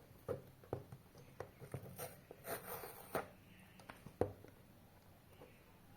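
Hands handling and opening a smartphone's cardboard retail box: scattered clicks and taps with a short stretch of rustling, and one sharper click about four seconds in.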